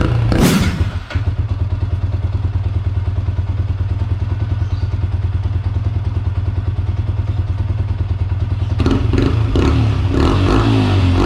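Yamaha Sniper 150's single-cylinder four-stroke engine through an aftermarket Mody5 Power Pipe exhaust. It drops from higher revs to idle about a second in, with a short sharp burst as it does. It then idles with an even exhaust beat, and near the end the throttle is blipped several times.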